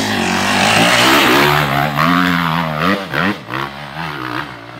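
Dirt bike engine revving hard close by as the bike pulls away, its pitch rising and wavering with the throttle. About three seconds in the note drops and carries on fainter, still revving up and down.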